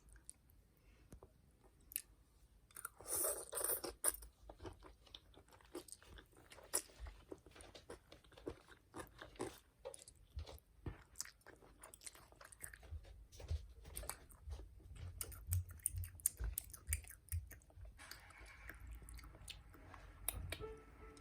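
A child chewing a mouthful of cold spicy bibim-myeon noodles with crunchy cucumber, heard close up as a long run of wet chewing and crisp crunches. There is a louder stretch of eating noise about three seconds in.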